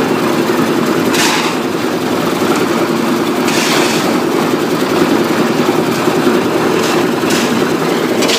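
Concrete mixer's engine running steadily with its drum turning, with repeated scrapes of a shovel through wet concrete every second or two.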